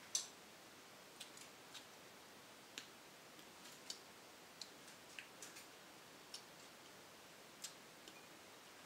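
Metal spoon clinking and scraping in a stone mortar bowl of cut fruit: one sharp clink at the start, then small scattered clicks every half second or so over near silence.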